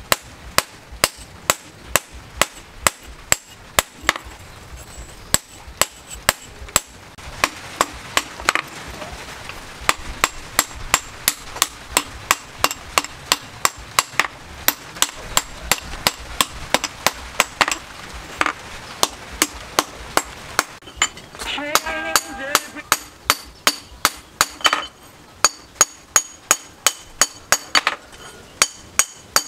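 Hand hammer striking a red-hot steel axe head, forged from a car axle, on a steel post anvil, in a steady rhythm of about two to three sharp blows a second.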